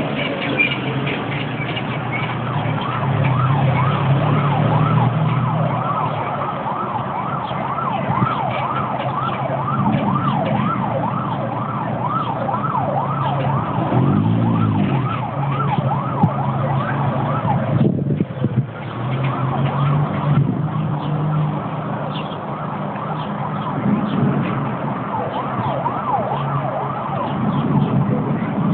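Emergency vehicle siren in a fast yelp, its pitch sweeping up and down several times a second, over a steady low engine and traffic hum. The siren fades after a brief dropout about two-thirds of the way through.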